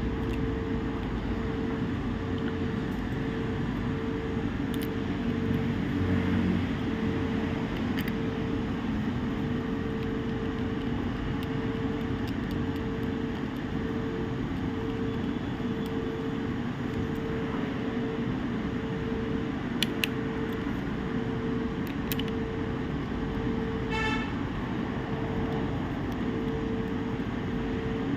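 Steady background hum and traffic-like noise with a low tone pulsing on and off at an even rate. There are a few light clicks, and a short horn toot about 24 seconds in.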